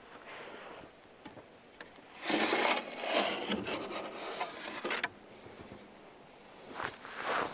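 Long-handled scraper dragging ash across the bottom of an outdoor wood boiler's reaction chamber: a rough, raspy scraping about two seconds in that lasts about three seconds, then a shorter scrape near the end.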